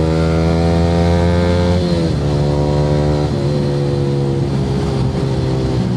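Yamaha R15 V3's single-cylinder engine through an aftermarket Akrapovic R9 exhaust, pulling under throttle with a slowly rising pitch. About two seconds in the pitch drops sharply, and the engine runs on at a lower, steadier note.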